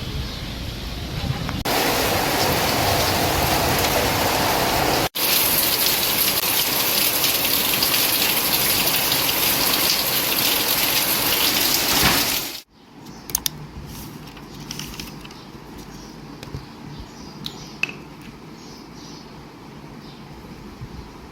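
Heavy rain pouring down in a loud, steady rush, changing abruptly twice; about twelve seconds in it drops suddenly to a much lighter patter with scattered drips.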